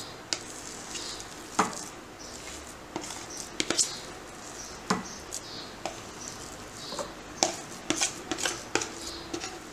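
A spoon knocking and scraping against a glass bowl and container as coarse-ground chana dal is scooped into it, with irregular sharp clinks.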